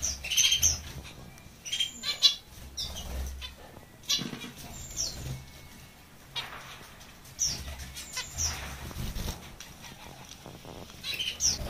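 Zebra finches hopping and fluttering about, with soft wing flutters and scattered short, high chirps.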